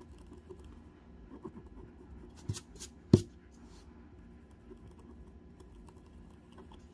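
Faint scratching of a wooden stylus scraping the black coating off a scratch-art painting board in small strokes, with two sharp clicks about half a second apart a few seconds in, the second the loudest.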